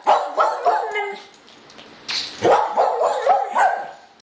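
A dog barking and yipping in quick runs, in two bouts: one right at the start and another from about two and a half seconds in, cut off abruptly near the end.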